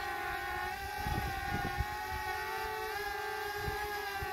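Quadcopter drone's propellers whining steadily in flight, the pitch wavering slightly as it manoeuvres, with wind gusting on the microphone.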